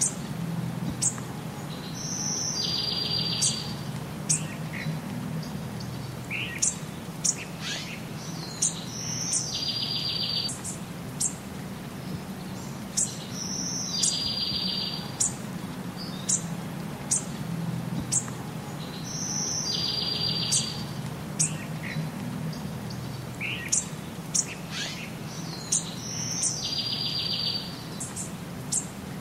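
Songbirds singing: short high chirps scattered throughout, and a phrase of a high note followed by a fast, buzzy trill that repeats about every six seconds, over a low steady hum.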